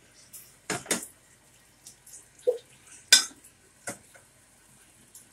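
A slotted metal spatula knocking and scraping against a stainless steel skillet: several sharp clinks, the loudest about three seconds in.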